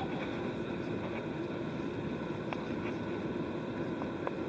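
Steady engine and airflow noise of an airliner in flight, heard inside the cabin, with a few faint ticks.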